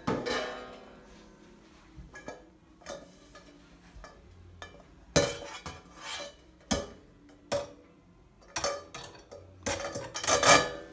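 Cymbal and cymbal-stand hardware clinking and knocking: irregular sharp metallic hits, each with a short ring, the loudest cluster near the end.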